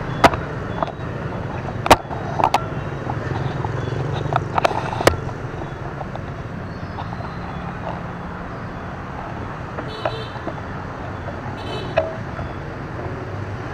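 Steady rumble of city street traffic from motorbikes and cars, with several sharp clicks in the first five seconds and short horn toots near the end.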